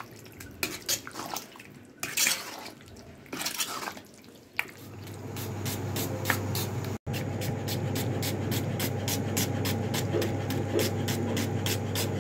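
Hands mixing marinated beef chunks in a steel bowl, in irregular bursts. Then a knife slicing red onions on a cutting board, about three cuts a second, over a steady low hum.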